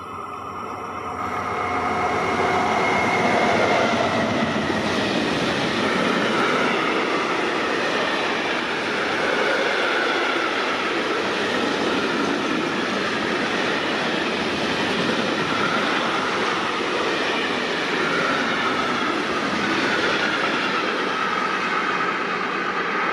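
A freight train of covered hopper wagons rolls past at speed behind an Alstom BB 36000 electric locomotive. The noise swells over the first couple of seconds as the locomotive comes by, then holds steady as a long rumble of wheels on rail. A high, wavering squeal from the wheels runs over the rumble.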